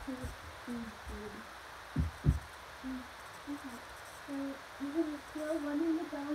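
Muffled, low voices or humming heard faintly, as short pitch-bending sounds that come more often near the end. Two soft thumps come about two seconds in.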